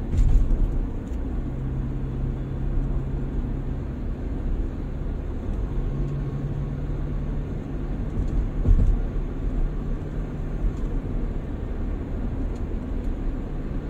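Car cabin noise while driving on a highway: steady engine hum and tyre rumble, the engine note rising a little in pitch about six seconds in, with one brief thump a little before the ninth second.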